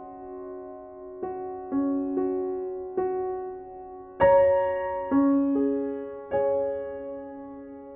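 Soft, slow background piano music, gentle chords struck about once a second and left to fade, with a stronger chord about four seconds in.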